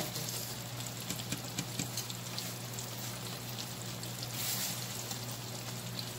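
A breaded fish fillet frying in oil in a skillet: a steady sizzle with scattered pops and crackles, briefly hissing louder about four and a half seconds in. A steady low hum runs beneath.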